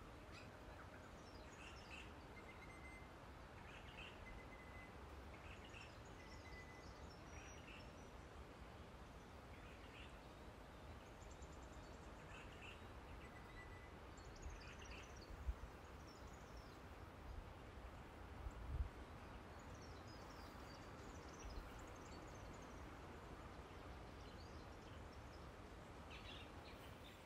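Faint bush ambience with wild birds calling: short chirps and whistles repeating every couple of seconds over a steady hiss. A few brief low bumps about halfway through.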